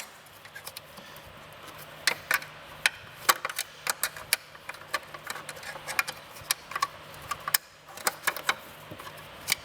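Irregular sharp metallic clicks and clinks of a wrench working loose the 3/8-inch mounting bolt on the bottom of a hot tub heater.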